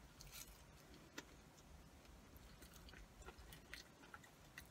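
Faint, close-up chewing of a mouthful of cheesy curly fries, with scattered small clicks.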